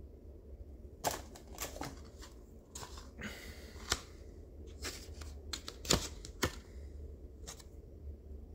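A string of light, irregular clicks and taps, the sharpest about six seconds in, with a short rustle a little past three seconds: small chainsaw engine parts and tools being handled and set down on a hard bench top.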